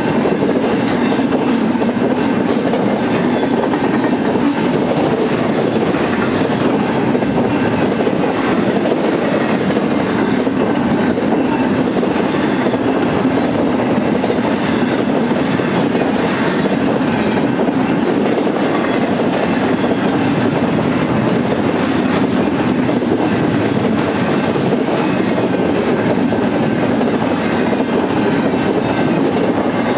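Double-stack intermodal freight train's loaded well cars rolling past: a steady rumble of steel wheels on rail with repeated clickety-clack of the wheels.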